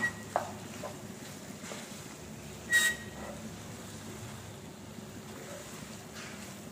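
A spatula stirring soft cooked barnyard millet in a nonstick pan: faint scrapes over a steady low hiss, with one sharp tap of the spatula on the pan and a short ring a little under three seconds in.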